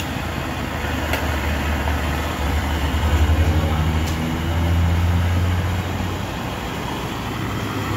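Steady hiss of a lit gas burner under a tea kettle, with a low hum that swells between about two and six seconds in, then fades.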